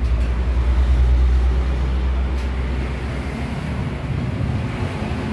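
iPower SM2000i inverter generator running steadily, a loud, even low hum.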